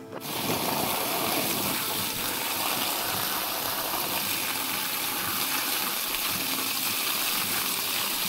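Water gushing hard from a garden hose, spraying onto a goat carcass and splashing off it. The rush starts suddenly just after the start and holds steady.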